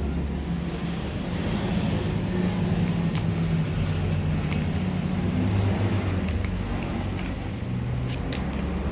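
A motor vehicle's engine running with a steady low hum, amid road traffic noise, with a few light clicks.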